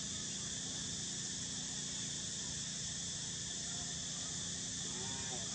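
Steady, high-pitched drone of an insect chorus, with a short call near the end.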